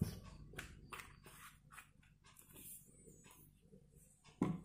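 Faint handling noises of a plastic bottle, bowl and spatula: scattered soft clicks and knocks, with a louder knock near the end.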